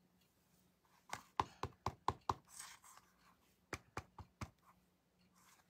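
Clear acrylic stamp block tapped down onto an ink pad to ink a rubber stamp: two quick runs of light knocks, about six and then, a moment later, about four.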